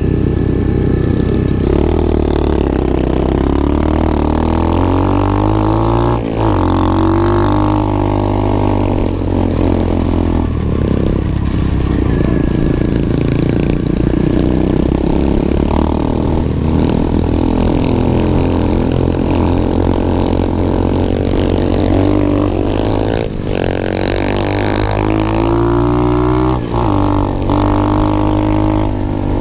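SSR 125 pit bike's single-cylinder four-stroke engine running under the rider on a trail, its pitch rising and falling with throttle and gear changes, with a few brief dips.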